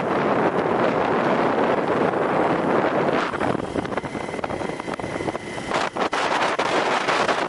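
Wind rushing over the microphone while travelling along a road, heard as a steady noisy rush. About three seconds in it eases and a faint steady whine shows. From about six seconds in come rapid knocks and rubbing as the camera is handled.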